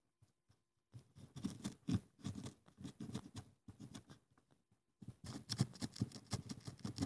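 Wooden stick poking and scraping inside a small plastic sand-art bottle, packing coloured sand down: rapid scratchy taps in two runs with a short break about halfway.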